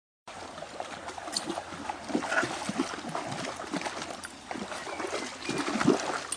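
A dog wading and paddling through shallow water, with irregular splashing and sloshing.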